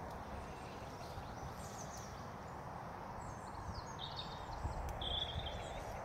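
Outdoor background ambience: a steady low rumble of noise with soft low knocks, and small birds chirping a few times. The clearest chirp is a short high note about five seconds in.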